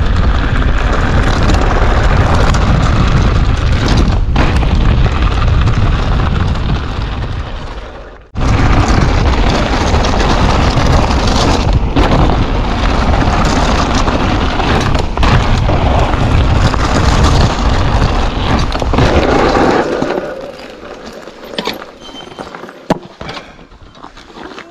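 Strong wind buffeting the microphone, a heavy low rumble. It drops out briefly about eight seconds in, then eases near the end, leaving quieter scattered clicks and rattles.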